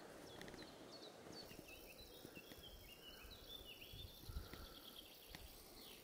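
Near silence with faint bird chirps: a scatter of quick, high chirps, busiest in the middle, over a soft low background noise.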